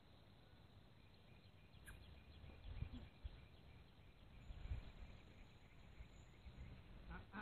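Near silence: faint outdoor ambience with a few soft low thumps and a faint high chirp.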